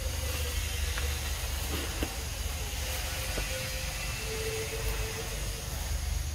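Steady outdoor background noise: a low rumble under an even hiss, with a couple of faint short whistle-like tones partway through.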